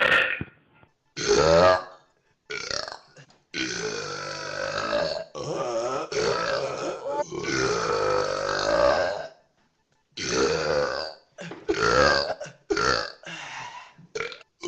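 A man belching over and over: several short burps, then one long drawn-out belch lasting several seconds, then a quicker run of short burps near the end.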